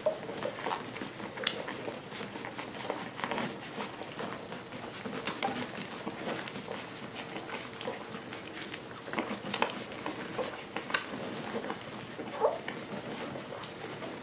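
A litter of young American Water Spaniel puppies piled together nursing, making scattered small squeaks along with soft shuffling and suckling noises. One short squeak comes near the end.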